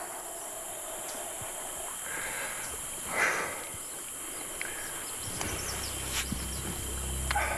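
Steady high-pitched jungle insect chorus. Two short splashes of water come about two and three seconds in as the big tarpon is handled beside the raft. A low hum joins about five seconds in.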